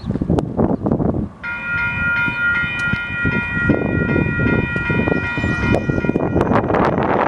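Railroad grade crossing's electronic warning bell starting about a second and a half in as the crossing signals activate. It sounds as a steady cluster of high tones over heavy wind buffeting on the microphone.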